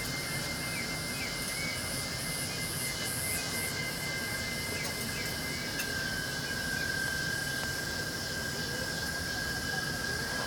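A night chorus of insects calling in long steady high tones, with a faster pulsing chirp very high up, over the continuous rush of the waterfall.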